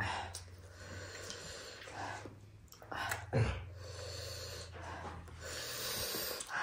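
Close-up eating sounds: a person chewing and breathing heavily, with a few light clicks.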